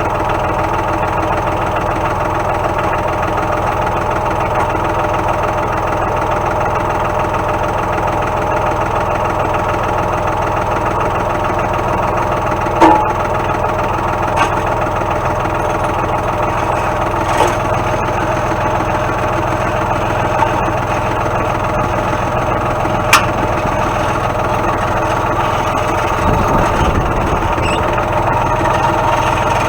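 Tractor engine running steadily at idle, with a few short sharp clicks or knocks over it and a brief low rumble near the end.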